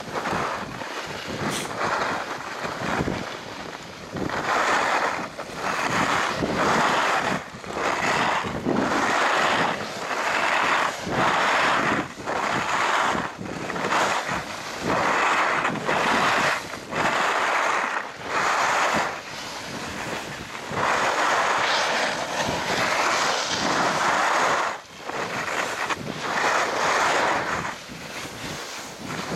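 Skis scraping and carving over packed snow, a rushing hiss that swells and drops about once a second through the linked turns, with wind buffeting the microphone.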